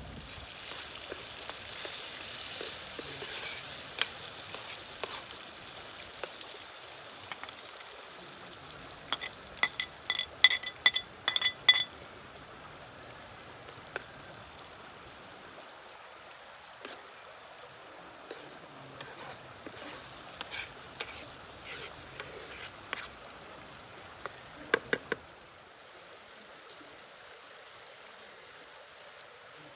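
Cooking sounds: a metal utensil stirring in a pot and clinking against it, a quick run of ringing clinks about a third of the way in and scattered lighter knocks later, over a steady hiss.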